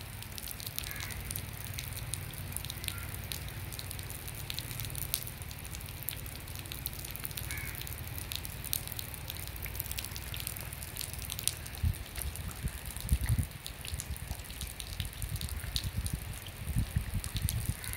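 Outdoor riverbank ambience: a low, uneven rumble on the microphone with many faint scattered ticks, and a few louder low thumps in the second half.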